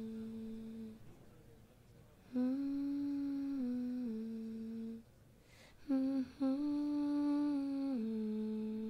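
A person humming a slow wordless tune in long held notes, in three phrases, each ending on a lower note.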